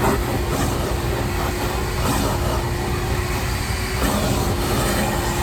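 Shop vacuum running steadily: a constant motor whine over the rush of air.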